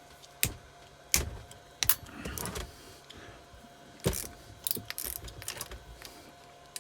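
Metal clicks and clinks of a wrench and socket working loose the cylinder head nuts on a 125 cc motorcycle engine, with short rattles as the loosened nut and tools are handled. There are about four sharp knocks and a few brief scraping bursts in between.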